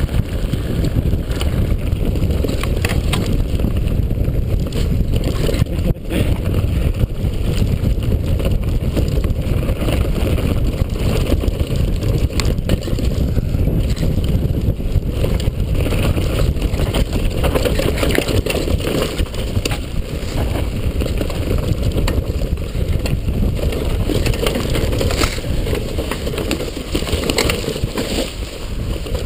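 Downhill mountain bike ridden fast over dirt, grass and fallen leaves, heard from a camera on the bike: a steady low rumble of tyres on the ground, with frequent knocks and rattles as the bike goes over bumps.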